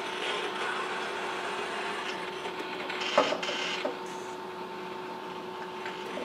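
Baxter robot arm's joint motors whirring as the arm swings across the workbench, over a steady hum. A single sharp clack about three seconds in.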